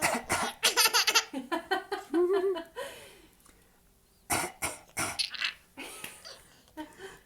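An adult coughing in two bouts, at the start and about four seconds in, with a small child laughing after each.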